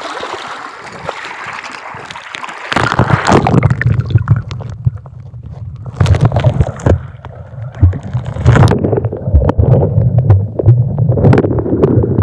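Lake water gurgling and splashing around a camera taken underwater, muffled, with scattered knocks and a low rumble from about three seconds in.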